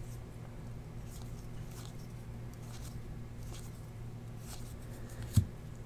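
Faint rustle and light clicks of a stack of trading cards being slid and flipped through the hands, over a steady low hum, with a short low thump near the end.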